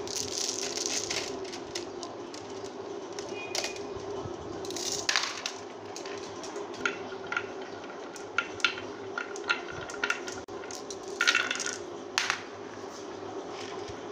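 Marbles clacking together in a hand and dropped one by one onto a wooden groove track, rolling down and clicking against the wood and against each other as they stack up in a line. The clicks come singly and in short rattling clusters.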